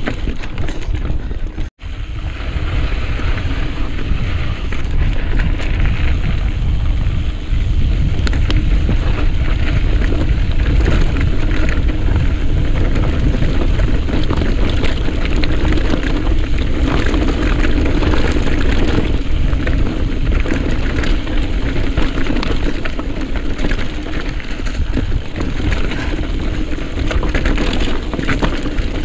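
Mountain bike riding over a rocky trail: wind rushing over the microphone with a constant low rumble and dense rattling and clattering of the bike. The sound drops out for an instant about two seconds in.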